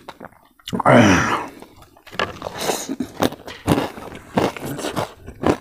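Close-up eating sounds: a mouthful of food chewed with wet smacks and quick clicks, after a short vocal sound about a second in.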